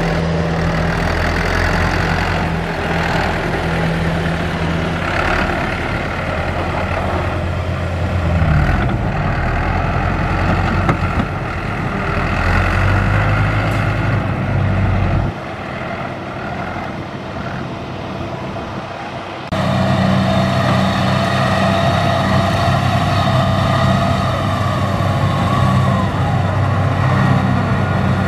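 Diesel engines running under load: a Changfa CFD504 tractor's engine labouring as it pulls a loaded trailer through mud, then, after a quieter stretch, a tracked Kubota combine harvester's engine running steadily from about twenty seconds in.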